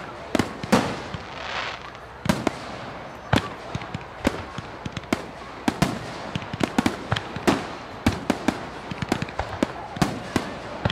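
Fireworks going off: sharp bangs and pops at irregular intervals, bunching into a dense crackle about two-thirds of the way through.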